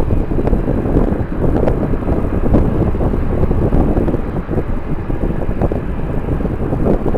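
Strong wind buffeting the microphone: a low rumbling noise that swells and dips in gusts.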